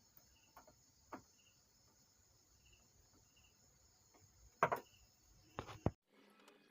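Faint clicks and knocks of parts being handled while an amplifier's circuit board is fitted into its chassis, with the loudest knocks about four and a half seconds in and again shortly before six seconds. Faint cricket chirps repeat behind them over a steady high hiss.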